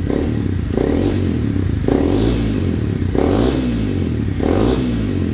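Honda CBR250R's 250cc single-cylinder engine revved through a Kawasaki Ninja 250 slip-on silencer, in four short throttle blips about a second apart, the revs rising and falling back toward idle between them.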